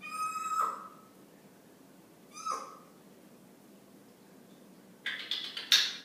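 Congo African grey parrot calling: a held whistle-like note that drops in pitch at its end, a shorter similar call about two seconds later, then a louder, harsher rasping call near the end.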